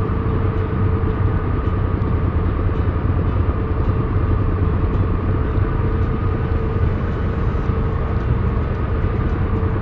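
Triumph Tiger Explorer motorcycle's three-cylinder engine running at a steady cruise, with road and wind noise.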